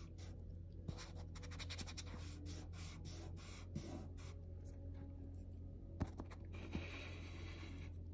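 Faint scratching and rubbing of chalk pastel on watercolour paper as it is worked into a painted brick by hand, in many quick small strokes over a low steady hum.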